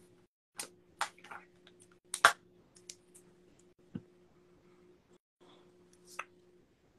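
Irregular short clicks and light taps of handling close to a phone's microphone, the loudest about two seconds in, over a faint steady hum.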